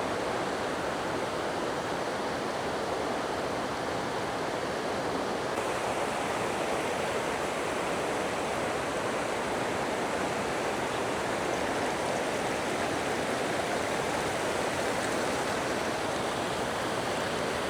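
Rushing water of a rocky mountain stream tumbling down a run of small cascades, a steady even roar.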